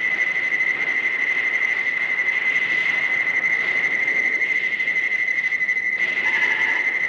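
An insect trilling steadily on one high pitch over tape hiss, with a brief lower call joining near the end.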